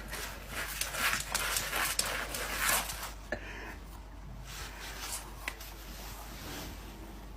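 A dog panting in quick breathy puffs, which fade after about three seconds into a quieter stretch with a few faint clicks.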